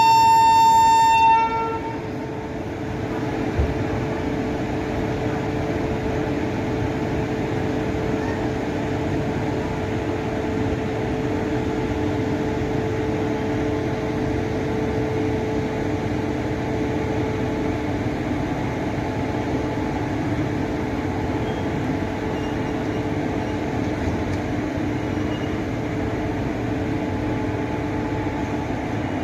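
A train's horn sounds loudly for about a second and a half, followed by a short second toot, as a WAP7 electric locomotive starts a passenger train. Then the LHB coaches roll steadily past, a constant rumble of wheels on rail with a steady hum.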